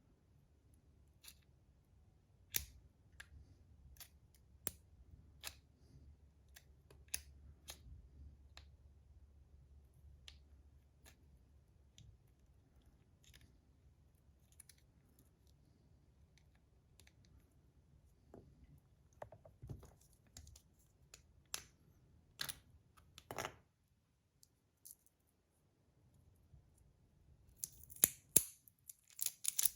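Scattered light clicks and taps of a 3D-printed plastic slider fidget being handled, with a quicker run of clicks near the end.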